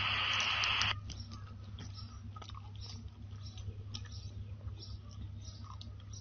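Steady recording hiss that cuts off suddenly about a second in, leaving a low steady electrical hum with faint, irregular small clicks.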